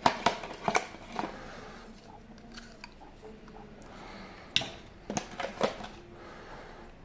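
Toy figures and their plastic packaging being handled: two short bursts of crinkling and clicking, one at the start and one about four and a half seconds in, with light rustling between.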